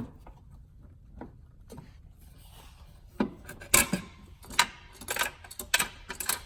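Metal clinks and scrapes as the snowmobile muffler's hold-down springs are unhooked and the muffler is worked loose: a few faint clicks, then about six sharp clanks and scrapes from about three seconds in.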